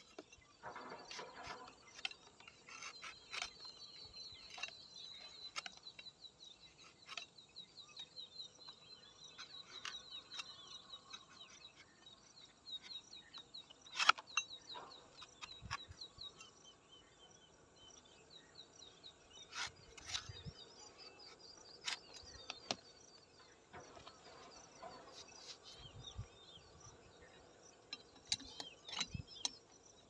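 Sharp clicks and scrapes of a toddy tapper's knife and hands working the fruit stalk of a palmyra palm, with one loud knock about fourteen seconds in. A high, rapid chirping trill runs through the first half.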